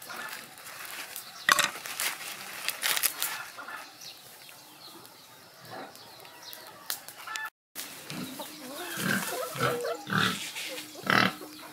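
Corn husks and silk rustling and tearing as an ear of sweet corn is husked by hand, with sharp crackles about one and a half and three seconds in. After an abrupt cut about two thirds of the way through, farmyard poultry make a run of short, low calls.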